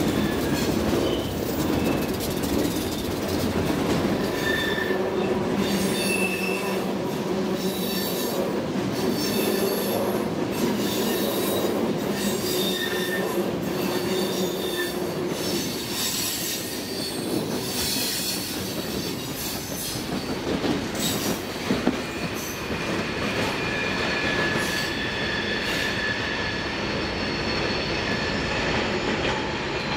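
Freight train of diesel locomotives and loaded tank cars rolling through a curve: a steady rumble of wheels on rail with the locomotives' diesel engines droning in the first half, and steel wheels squealing against the rails in shifting high tones that come and go. A few sharp knocks of wheels over rail joints a little past two-thirds through.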